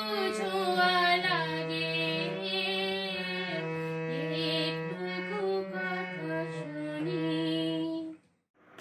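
A woman singing with harmonium accompaniment, the harmonium holding steady low notes beneath her voice. The music stops abruptly about eight seconds in.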